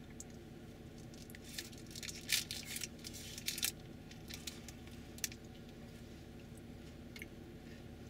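Low, steady engine hum, with a brief flurry of close crackling and rustling clicks about two to four seconds in.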